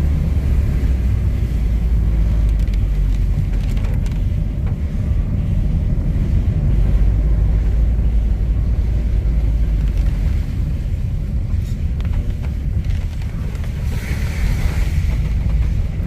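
Steady low rumble of a car driving, heard from inside the cabin: engine and tyre noise. A brief hiss rises about fourteen seconds in.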